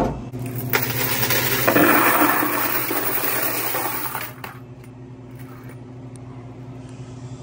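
Loose coins pouring and jangling out of a vending machine's metal coin box into a cardboard box, loudest a little under two seconds in, then stopping after about four seconds.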